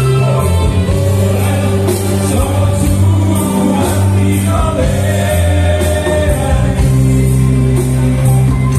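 A group of men singing together in harmony into microphones, backed by a live band with a steady bass line and a regular beat.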